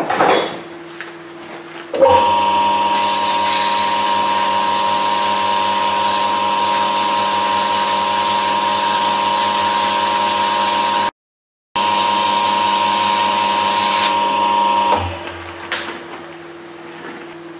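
Small Clarke lathe running with a steady whine while abrasive paper is held against the spinning metal tube bender die, adding a loud hiss. The sound starts about two seconds in and stops about fifteen seconds in, cutting out for half a second near the middle.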